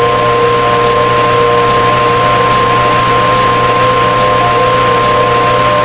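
Mock emergency alert tone: a steady single high tone of about 1050 Hz, the pitch of the NOAA Weather Radio warning alarm, held over lower steady tones and heavy static hiss. It signals that a warning, here a tornado emergency, is about to be read.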